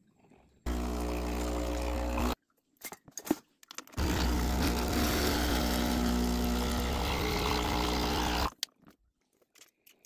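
Breville espresso machine's vibratory pump buzzing as it pushes descaling solution through during a descaling run: a short run of about two seconds, a few clicks, then a longer run of about four and a half seconds with the hiss of hot water pouring from the hot-water outlet into a mug.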